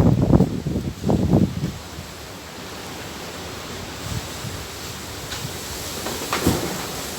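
Storm wind gusting against the microphone for the first couple of seconds, then a steady rushing of the wind, with a couple of faint knocks near the end.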